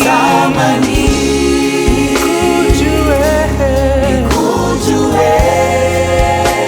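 Gospel worship music: a choir singing with a band, bass and drums under the voices.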